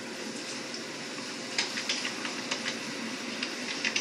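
Steady hiss of a television sound track recorded off the set, with a run of light clicks from about a second and a half in, fitting a telephone being handled and dialed.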